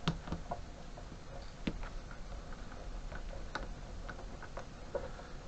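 Small irregular clicks and ticks of a screwdriver turning out a small screw from a CCTV recorder's case, with sharper clicks right at the start and about a second and a half in.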